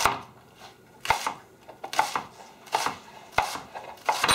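Chef's knife chopping leeks on a plastic cutting board: crisp slicing strokes, each ending in a knock of the blade on the board, about one a second.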